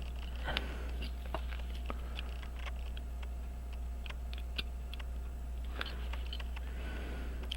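Small irregular clicks and taps of tools and small metal parts being handled during pocket-watch repair, over a steady low hum.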